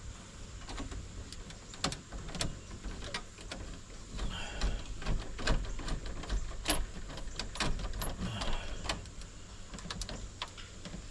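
Irregular clicks and light knocks of hand work on an electrical panel as wires and terminal screws are being connected.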